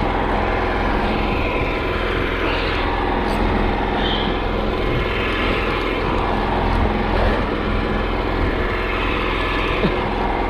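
A motor on a small fishing boat running steadily with an even hum, and water sloshing against the hull.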